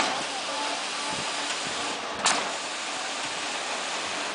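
Concrete delivery line clanking with the strokes of a stationary piston concrete pump pushing concrete up to the hydraulic placing boom: a sharp, briefly ringing clank at the start and another a little over two seconds later, over steady site noise.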